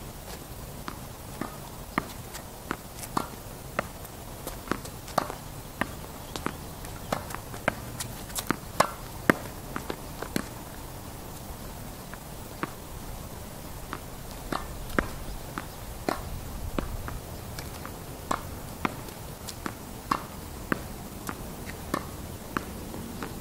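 A tennis ball being struck by a racket and bouncing on a hard court: a string of sharp, irregular pops, about one or two a second, with footsteps on the court between them.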